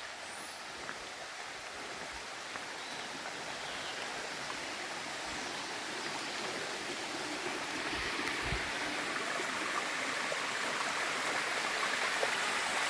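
Rushing water of a waterfall: a steady hiss that grows gradually louder.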